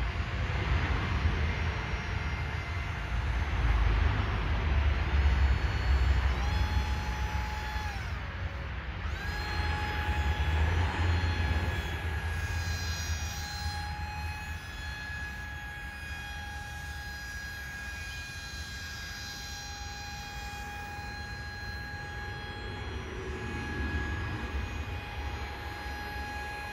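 Radio-controlled paramotor's motor and propeller whining overhead. The pitch steps up about six seconds in, dips and briefly drops away around eight seconds, then comes back and holds steady. Wind rumbles low on the microphone, strongest in the first half.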